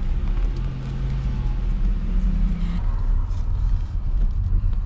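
Car driving, heard from inside the cabin: a steady low rumble of engine and road noise, with a hum that steps up in pitch about two seconds in.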